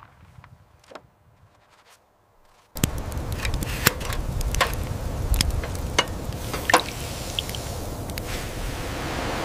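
A cannon shot dies away to near silence. About three seconds in, a steady crackling sizzle with a low rumble and scattered sharp clicks and knocks starts abruptly: hot black pitch steaming in a copper pan while a small brass tool is worked over it.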